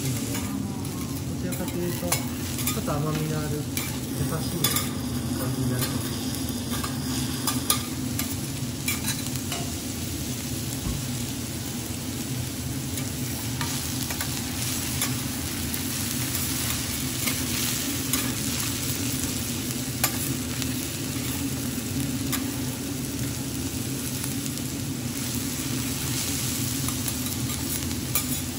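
Diced onion and minced garlic sizzling in fat on a teppanyaki steel griddle, steady throughout. Metal spatulas scrape and tap against the plate now and then as they stir and push the food, over a steady low hum.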